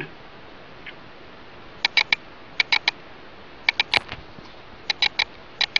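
Short, sharp clicks in quick clusters of two or three, about once a second from about two seconds in, as fingers work carbon fiber vinyl film around the handle of an X-Acto knife.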